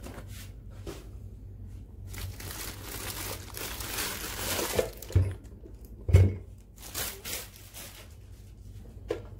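Clear polythene wrapping crinkling and rustling as a metal impulse bag sealer is pulled out of it, with two dull thumps about five and six seconds in.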